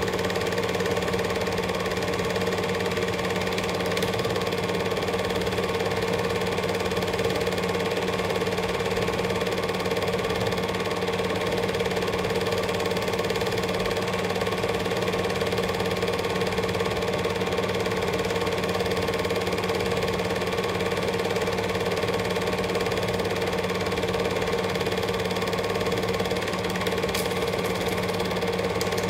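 Cine film projector running steadily: a constant mechanical whirr of the motor and film-advance mechanism with a steady hum.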